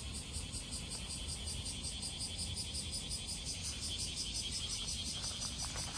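Insects calling in a steady, rapidly pulsing high trill, over a low background rumble.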